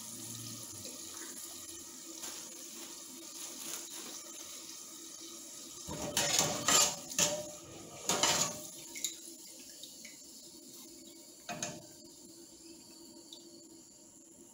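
Hot deep-frying oil in a steel stockpot sizzling steadily as fries are lifted out with a wire spider strainer. Metal scraping and clattering against the pot, loudest in bursts about six and eight seconds in, with a single knock near twelve seconds.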